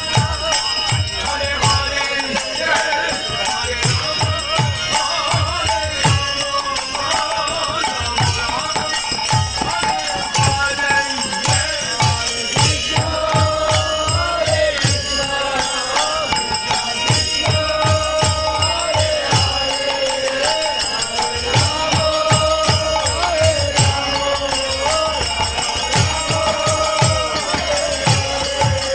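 Devotional kirtan: a voice chanting a melodic mantra over hand cymbals jingling continuously and a drum beating a steady rhythm.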